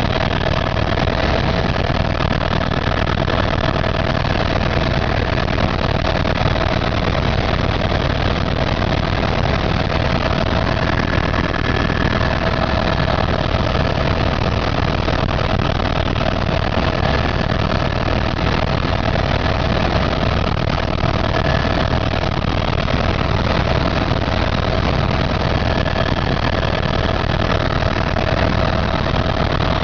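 Helicopter's engine and rotors running steadily, a dense constant noise with a steady whine over it.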